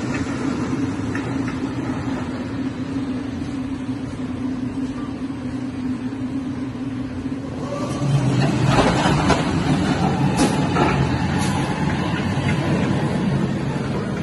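A steady low hum, then about eight seconds in a roller coaster train on a steel-tracked RMC hybrid coaster runs past close by: a loud rumble of wheels on the track with sharp rattles and clacks mixed in, easing off toward the end.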